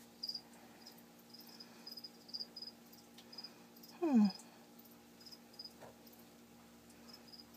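Feeder crickets chirping in short, irregular chirps, over a low steady hum. About four seconds in there is one brief vocal sound falling in pitch, the loudest thing heard.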